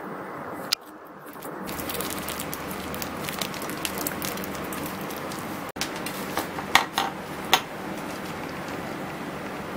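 Plastic packaging crinkling and rustling as it is handled, in many small crackles, then a few sharper clicks and knocks of the packaging and box about seven seconds in, over a steady background hiss.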